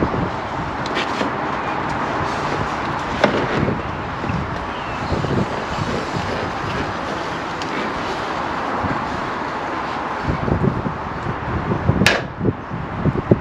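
Steady outdoor background noise while a Suzuki Hayabusa is wheeled by hand with its engine off, with scattered handling knocks and clicks. A cluster of low knocks comes near the end, then one sharp click, the loudest sound.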